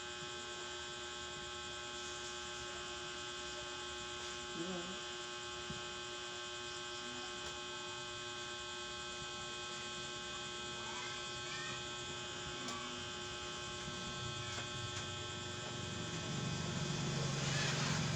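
Steady electrical hum made of several constant tones, some low and some high-pitched. Near the end, a louder rustling noise rises over it.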